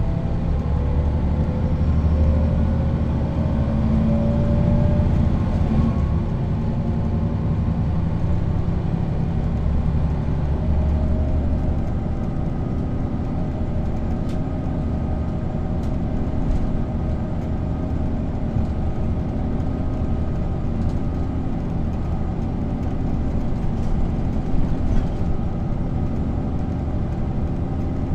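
Neoplan N 4016 city bus heard from inside the passenger saloon while driving: steady diesel engine drone, with the ZF automatic gearbox's whine rising in pitch over the first few seconds as the bus accelerates, then running steadily, with a few faint rattling clicks.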